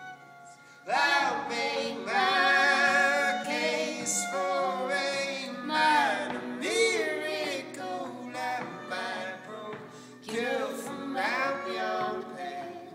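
Folk song with voices singing in harmony over an acoustic guitar; after a brief lull the voices come in about a second in and hold long, wavering notes.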